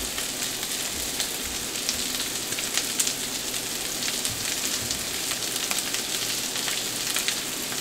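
Chopped ground beef and onions sizzling on a hot stovetop griddle: a steady frying hiss with scattered small crackles.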